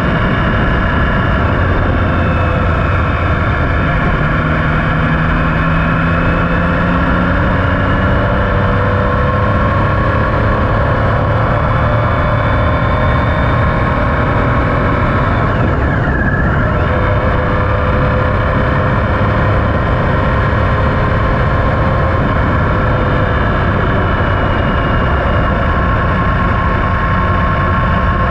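Triumph Speed Triple 1050's three-cylinder engine running at a steady cruise, loud and even.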